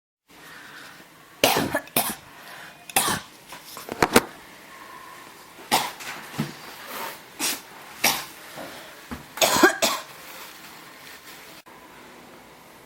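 A person coughing over and over: loud, short coughs, some in quick pairs and a tight cluster near the end, roughly a second apart, stopping a few seconds before the end.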